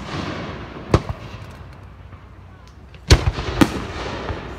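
Aerial firework shells bursting with loud, sharp bangs: one about a second in, then two more about half a second apart near three seconds in, each trailing off in a fading echo.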